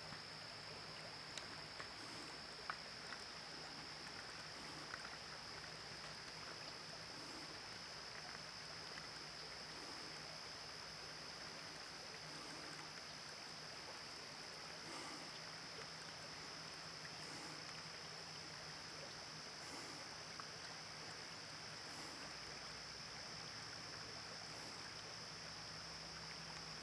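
Quiet ambience of a calm river flowing past a gravel beach, with a steady high-pitched hiss and faint soft sounds recurring every two to three seconds.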